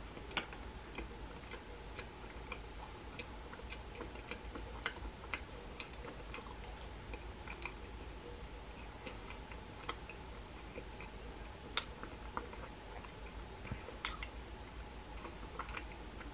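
Faint chewing and scattered sticky mouth clicks from a person eating a macaron, thin and distant because the close microphone was not recording, over a steady electrical hum.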